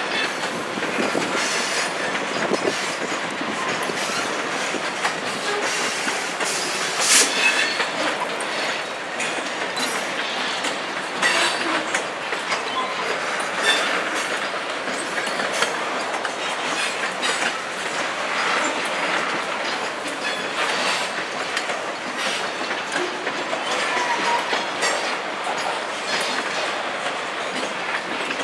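Freight train of covered grain hopper cars rolling slowly past, steel wheels clicking over the rail joints. A sharp clank rings out about seven seconds in, and a brief wheel squeal comes near the end.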